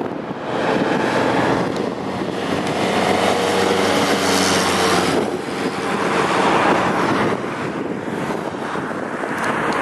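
Mercedes-Benz Unimog truck driving past, its engine note growing louder as it nears, loudest about four to five seconds in, then easing as it moves away.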